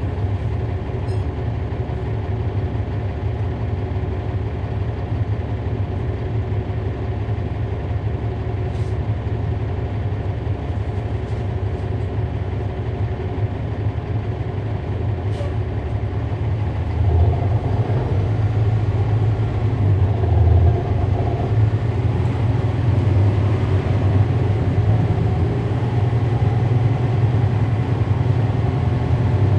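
Cummins ISL9 inline-six diesel of a 2011 NABI 40-foot transit bus, heard from inside the bus, running steadily. It grows louder about halfway through, with a few brief sharp clicks along the way.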